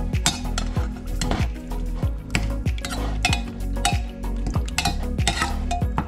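Background music with a steady beat about twice a second, over the clinks and scrapes of a metal spoon stirring thick vegetable soup in a pressure cooker pot.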